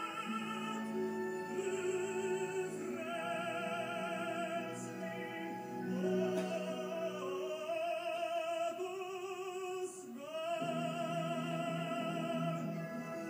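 Operatic singing with strong vibrato over orchestral accompaniment, long held notes changing every second or two, with a swooping rise into a new note about ten seconds in.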